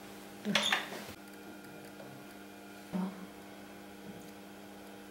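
Handling noise from threading the upper thread of a sewing machine: a short scraping rustle about half a second in and a softer knock about three seconds in, over a steady faint hum.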